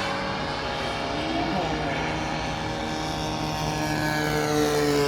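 Small model jet turbine of 4.5 kg thrust in an RC Su-35 flying past, a continuous whine over a broad rush of jet noise, its tones sliding down in pitch near the end.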